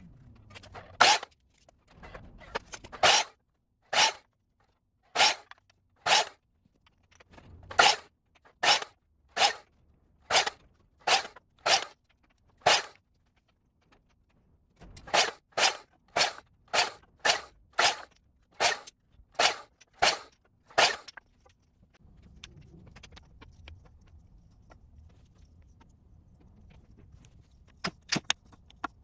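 Ryobi 10-inch compound miter saw chopping 2x4 stock into blocks, heard as a quick string of about twenty short cuts, roughly one a second, each cut off sharply with silence between. The cuts stop a little after 20 seconds, leaving a faint hum and a few light wooden clicks near the end.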